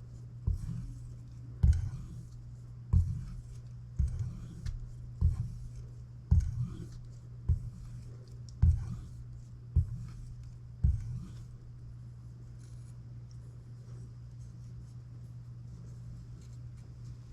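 About ten short knife strokes, evenly spaced at roughly one a second, each with a dull thump, over a steady low hum; the strokes stop about eleven seconds in and the hum goes on.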